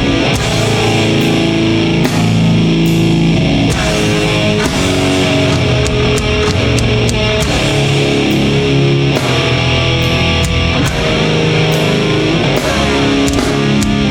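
A live heavy metal band playing loud, with distorted electric guitars and a drum kit keeping a steady beat, no vocals.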